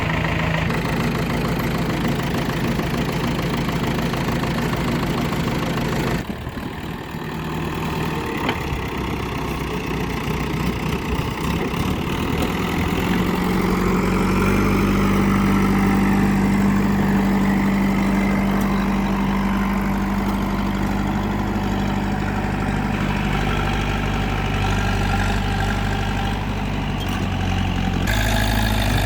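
JCB 3DX backhoe loader's diesel engine running. Its note changes abruptly about six seconds in, then the revs rise about halfway through and hold higher as the machine works.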